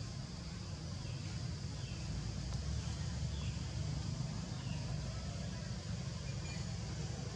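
Outdoor background: a steady low rumble, with faint short falling chirps about once a second.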